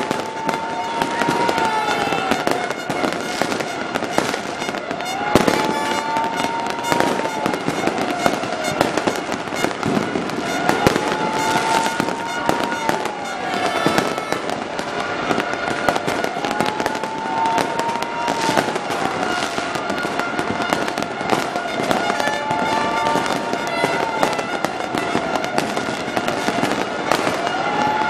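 Many fireworks and firecrackers going off at once: continuous crackling and popping with frequent sharp bangs. Over it a wailing tone rises, holds and falls again about every five and a half seconds.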